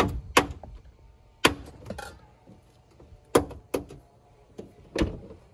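Driver's door check of a 2010 Toyota Tundra popping as the door is swung open and closed, with a series of sharp clicks, mostly in pairs. This is the noise of a door check whose plastic housing around the metal ring is cracked.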